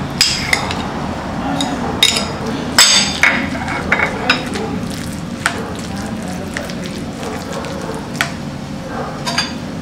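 A metal fork stirring diced tomato into chopped avocado in a ceramic bowl: soft wet mixing with irregular clinks of the fork against the bowl.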